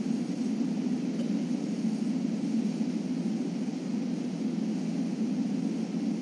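Steady low hum of background noise with no distinct events.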